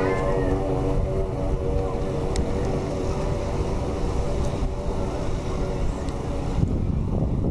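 Airplane passing overhead: a steady engine hum that fades out about a second in, leaving a low rumble.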